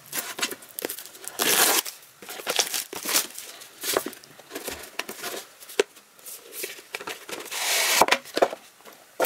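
A cardboard retail box being opened by hand: its seal tearing, then the cardboard rustling and scraping in irregular bursts, with a longer sliding scrape near the end as the lid comes off the inner box.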